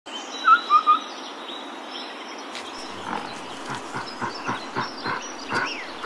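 Birds calling in forest: three loud short chirps about half a second in, over fainter high whistles. From about halfway comes a regular run of short calls, about four a second.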